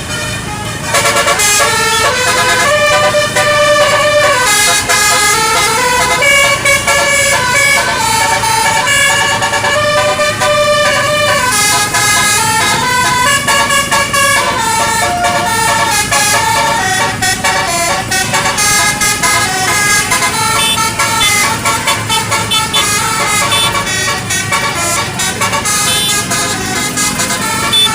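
A bus's basuri (telolet) multi-tone musical horn playing a long tune of stepped notes, several pitches sounding together, starting about a second in.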